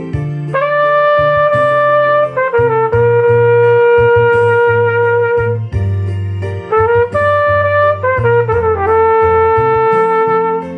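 Flugelhorn playing a slow melody of long held notes joined by short runs, over a recorded accompaniment with a steady bass line.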